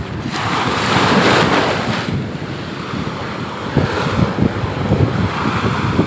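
Surf breaking and washing up a sand beach at high tide, with strong wind buffeting the microphone in gusty low rumbles. A wave's foaming wash swells up about half a second in and dies down about two seconds in, and smaller washes follow.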